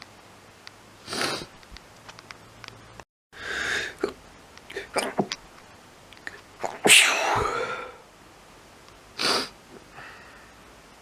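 A person sneezing again and again: about five sharp sneezes, the loudest about seven seconds in, with small sniffs and breaths between them.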